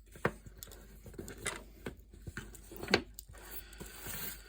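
Light rustling and a few small, sharp knocks from a basswood carving being handled and wood shavings being brushed off it, with the sharpest knock about three seconds in.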